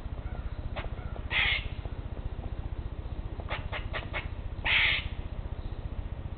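Eastern grey squirrel making territorial alarm calls: two harsh screeches about three seconds apart, with a quick run of four short 'que' barks between them.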